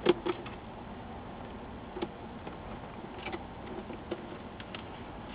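A precision screwdriver driving a small screw into a laptop screen's frame: a few faint, irregular clicks and ticks, the sharpest right at the start.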